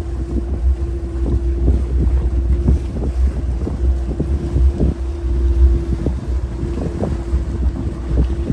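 Motorboat running at speed with a steady engine hum and a heavy rumble of wind buffeting the microphone, with irregular knocks and splashes of water against the hull.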